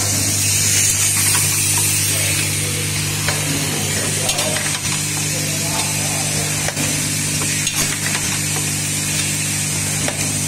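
Automated in-line screw assembly machine running: a steady low hum with scattered sharp mechanical clicks and clacks from its moving stations.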